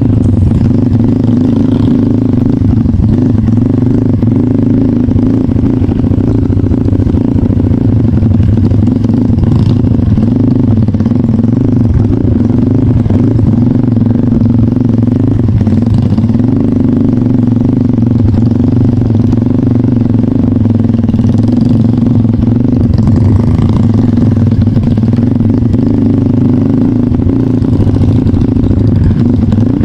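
Kawasaki trail motorcycle engine running at a steady, moderate speed, its pitch wavering slightly up and down with small throttle changes.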